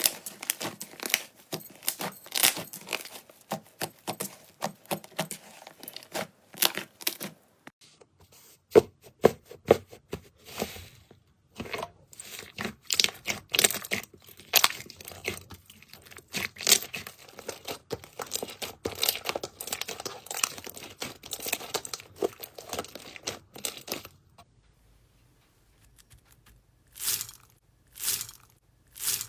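Slime being squeezed and pressed close to the microphone, giving a dense run of crackling, popping clicks. After a short lull near the end come three separate crackles.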